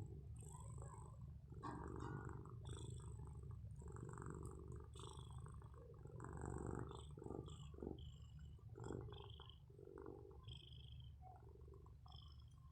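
A sleeping cat snoring softly, with quiet raspy breaths coming unevenly every second or two over a low steady hum.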